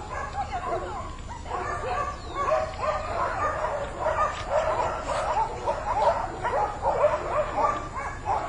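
Several dogs barking and yelping, many short overlapping calls without a break.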